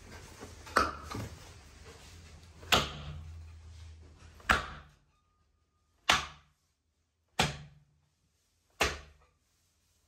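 A series of six heavy thuds at a steady pace, about one every second and a half, each dying away quickly.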